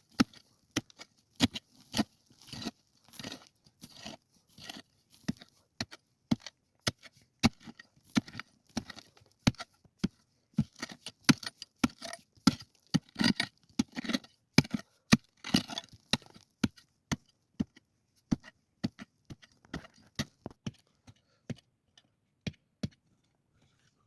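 Hand-tool work: irregular sharp knocks, often several a second, mixed with short scraping sounds, stopping near the end.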